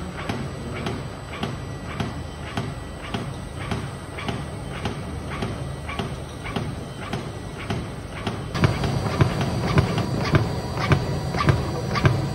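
MRD circular tow cutting machine running, its rotor cutting textile tow fed from a roll, with a steady hum and a regular click about twice a second. About two-thirds of the way in the sound gets louder and fuller, with a faint high whine.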